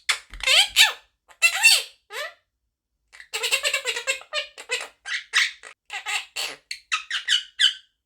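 Quaker parrot (monk parakeet) chattering and squeaking: a few short squeaky calls with swooping pitch, a brief pause, then a rapid run of chatter from about three seconds in until near the end.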